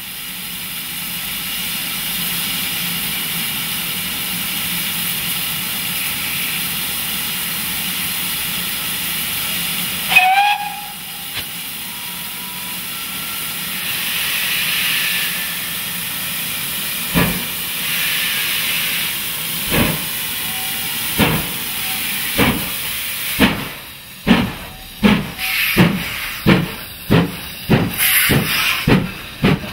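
GWR 5101 class 'Large Prairie' 2-6-2 tank locomotive 5199 starting away with a train: a steady hiss of steam at first, a short whistle about ten seconds in, then exhaust chuffs that begin slowly after about seventeen seconds and come faster and faster as it gathers speed.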